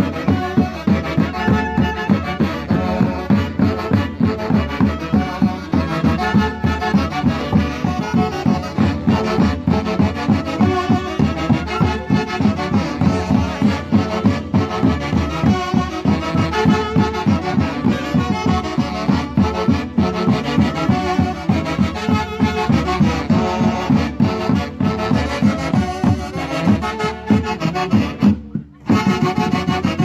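Andean orquesta típica playing live: saxophones and clarinets carry the tune together over Andean harp and violin, with a steady pulsing beat. The sound drops out for an instant near the end.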